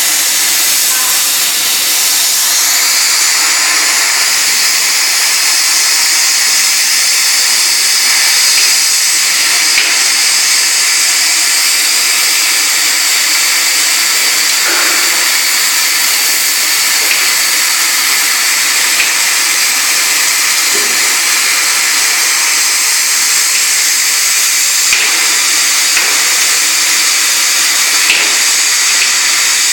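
Spiral duct forming machine running, a loud steady mechanical noise with a high hiss, with a few faint clicks along the way.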